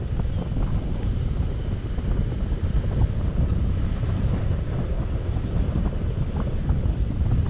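Wind buffeting the microphone during a paraglider flight: a steady low rumble with no break.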